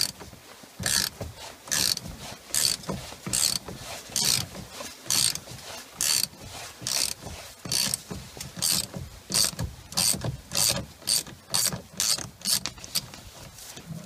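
Ratchet wrench with a 12 mm 12-point socket clicking as it backs out the steering wheel centre bolt, one burst of pawl clicks per return stroke. The strokes come about once a second at first and quicken to about twice a second near the end as the bolt turns more freely.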